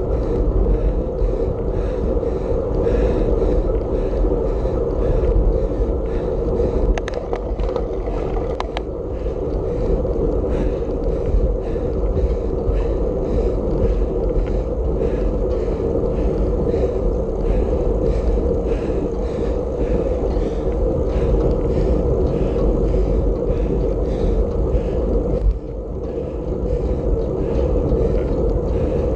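Wind rushing over a bicycle-mounted camera's microphone while riding at race speed, a steady rumble with a few brief clicks about seven to nine seconds in.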